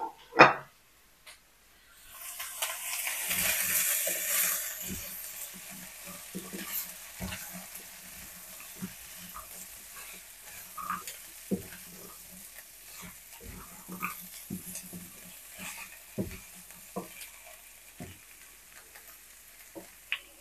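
Chicken, cashews and vegetables sizzling in a wok while a spatula stirs and scrapes them, with scattered knocks of the spatula against the pan. The sizzle starts about two seconds in, is loudest just after it starts, then settles lower.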